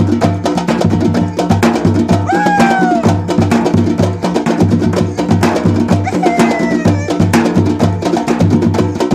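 Percussion ensemble playing a fast groove: dense, rapid drum strokes over a repeating low bass-drum pattern. A short pitched glide rises above it twice.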